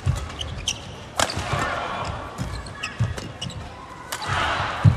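Badminton rally: two sharp racket strikes on the shuttlecock, about a second in and again about four seconds in, over repeated thuds of players' footwork on the court. Crowd noise swells after each strike.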